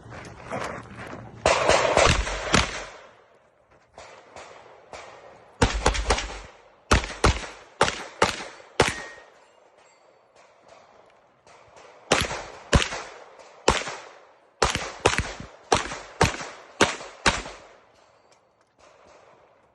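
Airsoft pistol firing strings of quick shots, in several groups with short pauses between them.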